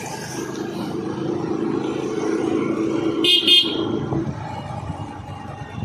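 Motor scooter riding along, a steady engine and road hum, with a short double horn beep a little over three seconds in.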